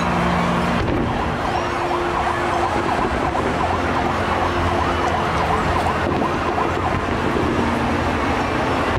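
Fireworks display: many overlapping thin whistles gliding in pitch over a steady dense din and low rumble, with no single loud bang.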